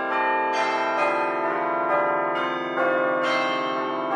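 Bell music: ringing, overlapping bell tones, with a new strike roughly every second, each left to ring on over the others.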